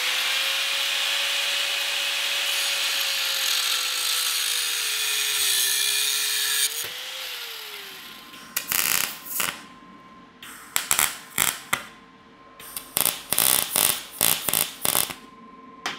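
Angle grinder running at speed, grinding a steel flat-bar bracket, for about six and a half seconds, then winding down. After that, a welder crackles in many short, irregular bursts.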